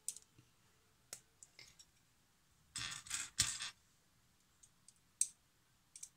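LEGO plastic bricks clicking as small plates are pressed together and handled, a few single clicks with a short burst of clattering about three seconds in.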